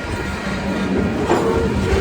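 Train rolling past: a steady rumble of the cars on the track, with a few faint steady tones above it.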